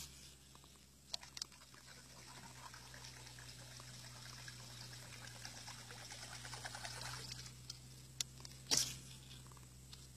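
Faint water sounds of a topwater frog lure being worked across the river surface, swelling for a few seconds in the middle, with a few sharp clicks and a louder one near the end.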